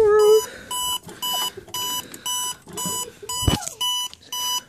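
Electronic alarm clock beeping steadily, about three short high beeps a second, as a dog's howl trails off at the start. A single thump comes about three and a half seconds in.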